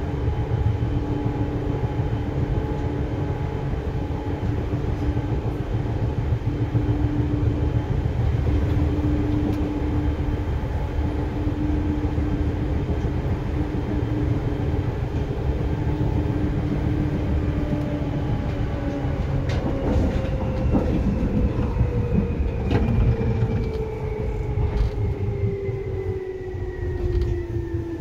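Seibu 2000 series electric train running, heard inside the car: a low rumble of the running gear under a steady motor and gear whine. About two-thirds of the way through, the whine starts to fall in pitch as the train slows, with a few sharp clicks.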